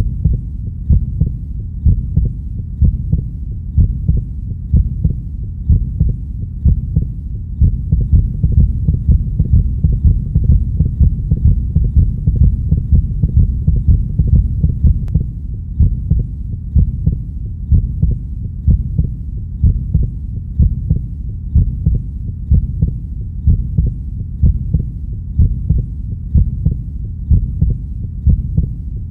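Recorded heartbeat playing as a steady, even rhythm of low, muffled thumps over a constant low rumble.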